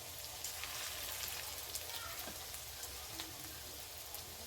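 Chicken pakoras deep-frying in oil in a kadai: steady sizzling with scattered small crackles.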